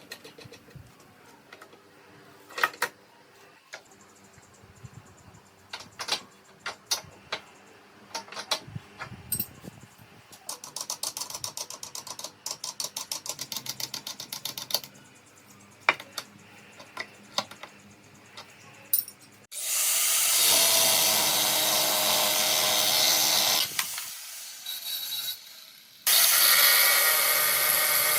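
Woodworking shop sounds: scattered knocks and clicks of hand work, then a quick run of evenly spaced ratchet-like clicks. About two-thirds of the way in a power tool starts running loudly and steadily, stops briefly, and starts again near the end.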